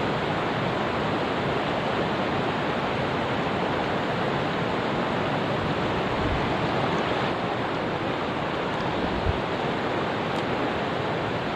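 Mountain stream water rushing steadily, with a couple of faint low thumps about six and nine seconds in.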